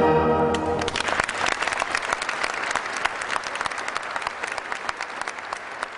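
Orchestral music for a ballet ends about a second in, and the audience breaks into applause, which slowly fades.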